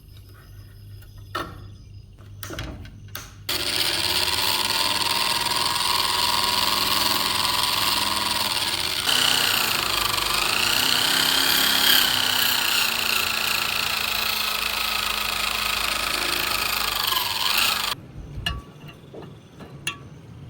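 Handheld electric power tool running for about fourteen seconds, its whine dipping and rising in pitch as it is worked against the piece, then cutting off suddenly. A few small clicks and knocks come before it starts and after it stops.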